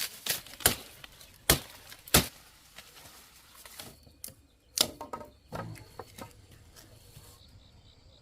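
Sharp chopping strikes of a blade cutting sugarcane stalks, about five loud irregular cuts with lighter knocks between. The cuts are densest in the first half, and one more comes near the middle.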